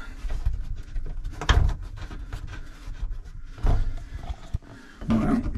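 Handling noises as a flexible metal shower hose is hooked back up to an RV shower faucet: rustling and rattling, with two louder knocks about a second and a half in and again near four seconds.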